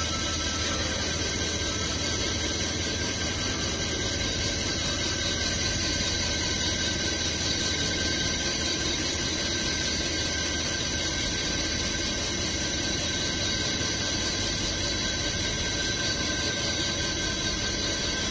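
Vertical CNC wheel lathe turning a car wheel while its tool cuts across the wheel face: a steady machine hum with a thin, steady high-pitched whine over it.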